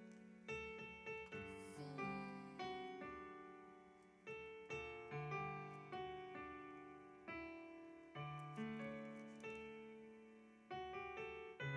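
Piano playing sparse single notes and chords, each struck and left to ring and fade before the next.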